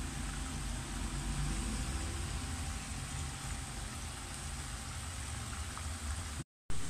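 Fish deep-frying in a pan of bubbling oil on a portable gas stove: a steady sizzle over a low rumble. Near the end it cuts out for a moment and returns with a short loud burst.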